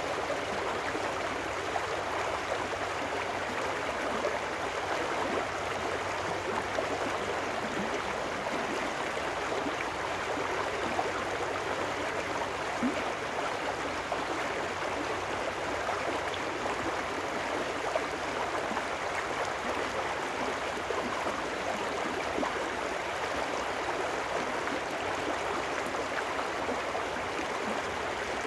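Small trout stream running fast over rocks in a shallow riffle, a steady, even rush of water.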